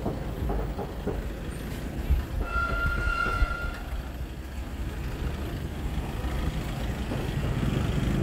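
Steady low rumble of a busy roadside eatery with passing traffic. About two and a half seconds in, a single high-pitched horn toot lasts just over a second.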